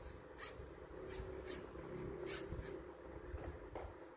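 Fingers handling and rubbing a carbon fishing rod's tip section, giving faint rubbing and a few light ticks over a low steady hum.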